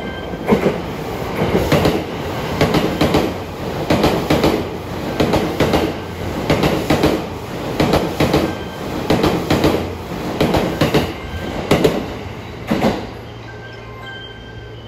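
Wheels of an E261 series limited express EMU clattering over a rail joint as the train passes, in quick clusters of clicks about once a second, one cluster per pair of bogies. The clatter stops about 13 seconds in, leaving a low steady hum.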